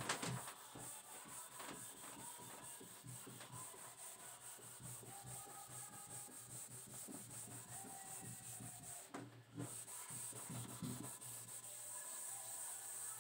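A duster rubbing across a whiteboard in repeated faint wiping strokes, erasing the writing.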